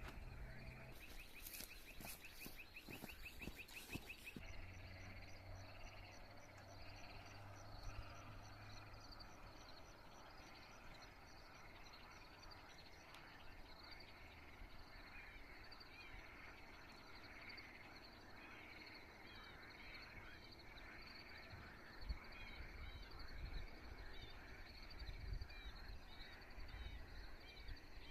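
Faint outdoor ambience full of small birds chirping and calling. A fast rattling trill is heard for a few seconds starting about a second in.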